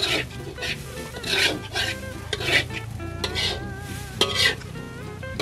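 Metal spatula stirring and scraping grated coconut around a metal wok as it is dry-roasted over a wood fire: irregular scrapes, one every half second or so.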